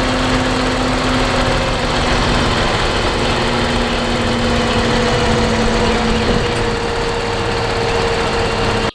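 A motor or engine running steadily with a dense, even drone and a faint steady hum, cutting off abruptly at the end.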